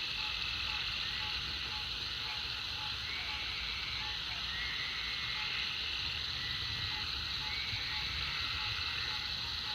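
Chorus of many frogs calling after heavy rain: a dense, steady high-pitched chorus with a shorter lower note repeated about twice a second and brief rising calls among it.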